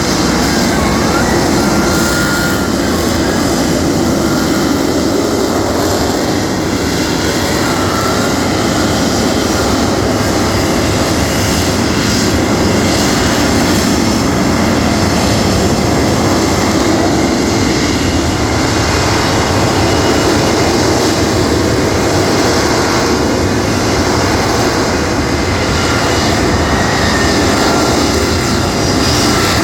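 Lockheed Martin F-35 Lightning II's single Pratt & Whitney F135 afterburning turbofan producing a loud, steady jet roar during its flying display.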